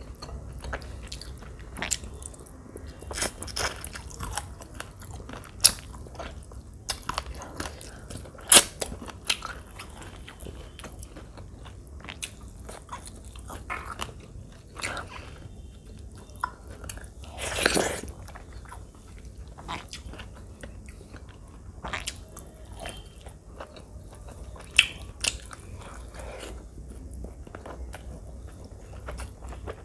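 Close-miked eating by hand of rice with chicken curry: bites and wet chewing in a steady run of soft clicks and smacks. One louder, longer wet mouth sound comes a little past the middle.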